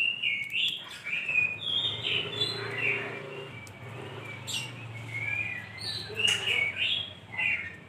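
Lovebird chirping: a quick string of short, high chirps that rise and fall in pitch, with a brief lull in the middle.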